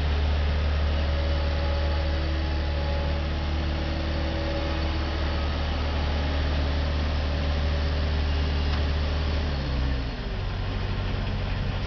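Bobcat 753 skid-steer loader's diesel engine running steadily, then slowing to a lower speed almost ten seconds in.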